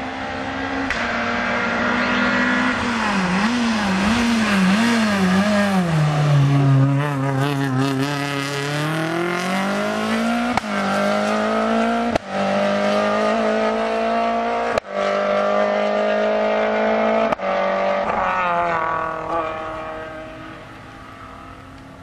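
Rally car engine at full stage pace: the revs waver up and down several times, drop low, then climb hard as the car accelerates through four quick upshifts. Each upshift is a brief cut with a sharp crack. The engine fades away near the end.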